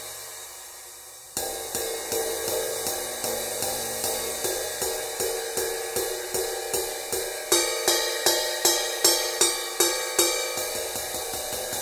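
1950s A Zildjian 19-inch sizzle crash ride, fitted with six copper rivets: a crash dies away, then about a second in the cymbal is ridden with a drumstick in an even pattern of about three strokes a second, the rivets sizzling between strokes. The strokes are harder for a few seconds past the middle, then ease off again.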